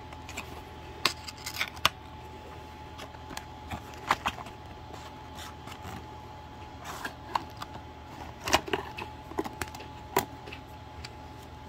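Cardboard packaging and a small die-cast subway-car model being handled: scattered clicks, taps and short rustles, the sharpest about a second in, just before two seconds, about four seconds in and around eight and a half seconds. A faint steady tone sits underneath.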